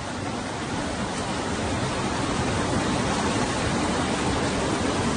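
Flash-flood water rushing in a torrent down a street, a steady churning rush of water.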